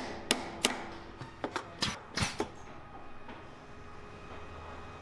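Small hammer tapping in a quick even rhythm, about three taps a second, as a knife handle is mounted onto its blade by hand, then a few lighter clicks and knocks around two seconds in before the tapping stops.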